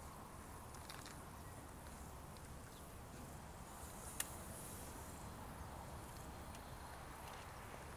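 Faint outdoor ambience: a steady high insect buzz over a low rumble, with a few light clicks, the sharpest about four seconds in.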